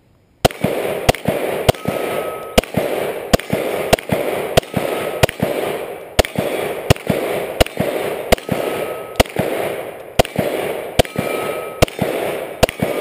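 Glock 34 9mm pistol fired in a long string of single shots, starting about half a second in and going on at about one shot every two-thirds of a second, each crack followed by a lingering echo.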